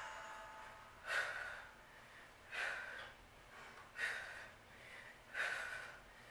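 A woman breathing hard with exertion: four short, forceful exhalations about a second and a half apart, one with each slow bicycle crunch.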